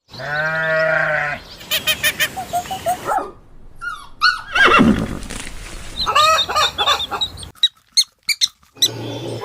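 Farm animal calls cut together one after another. It opens with a pitched call about a second and a half long, followed by clicking and chirping calls, with abrupt cuts between them.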